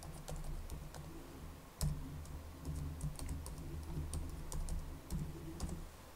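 Typing on a computer keyboard while entering login details: irregular key clicks, with one heavier knock about two seconds in.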